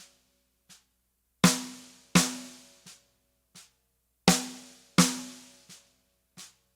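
Snare drum played in an accent exercise: two loud accented strokes followed by two soft ghost notes, about 0.7 s apart, twice over. The accents ring on briefly; the ghost notes are short and faint.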